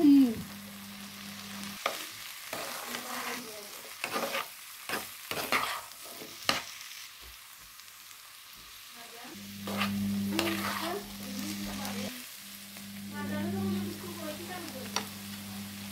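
Diced potatoes frying in oil in a non-stick pan, stirred with a plastic spatula that scrapes and taps against the pan several times in the first half. A steady low hum comes in about nine seconds in and breaks off briefly near twelve seconds.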